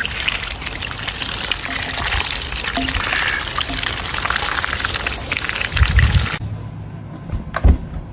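Water running in a steady gushing stream, which cuts off suddenly about six seconds in; a couple of sharp knocks follow near the end.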